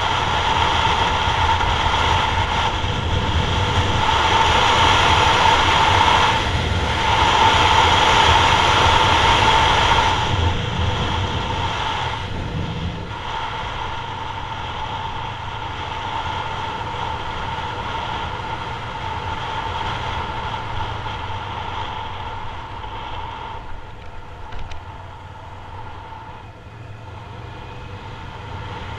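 Yamaha MT-03's 321 cc parallel-twin engine running while riding, mixed with wind and road noise on the camera microphone. It is louder in the first ten seconds, dips briefly a few times, then settles a little quieter.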